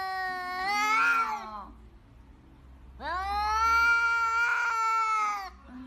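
A tabby cat giving two long, drawn-out meows. The first trails off in the opening second or two, and the second starts about three seconds in and lasts some two and a half seconds.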